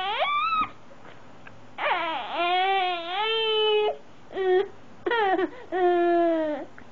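Five-month-old baby crying in a string of high, wavering wails: a long cry about two seconds in, then three shorter ones.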